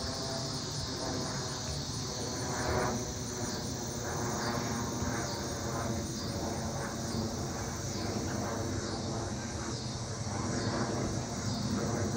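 Distant, steady rumble of a Mitsubishi CRJ-900LR regional jet's two turbofan engines as it climbs out overhead, with insects chirping in an even rhythm, about four pulses every three seconds.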